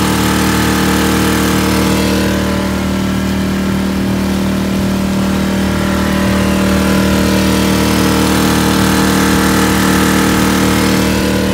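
Mercury 4-horsepower four-stroke outboard motor running steadily, pushing the boat along, a constant drone over the rush of its wake.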